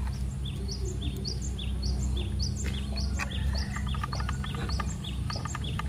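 A small bird chirping over and over, about three short notes a second that alternate between a lower and a higher pitch. Light clicks come from a screwdriver and plastic toy-train parts being handled, over a steady low hum.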